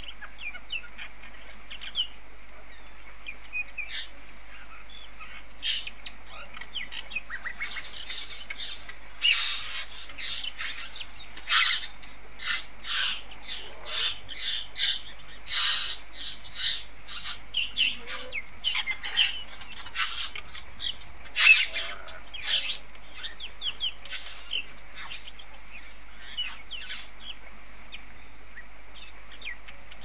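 Juvenile male satin bowerbird's courtship display: a run of short, quick calls and clicks. They are sparse at first, come thick and fast through the middle, then thin out near the end.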